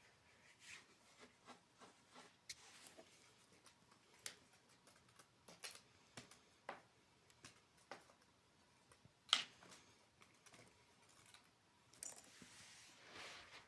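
Near silence with scattered faint light clicks and taps at irregular intervals, one sharper click about nine seconds in, and a soft hiss near the end.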